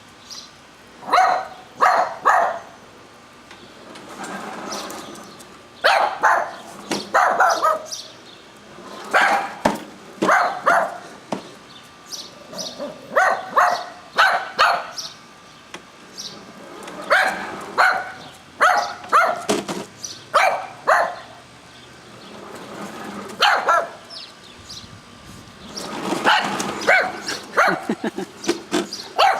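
A Shih Tzu barking in short volleys of several quick, sharp barks, with pauses of a couple of seconds between them.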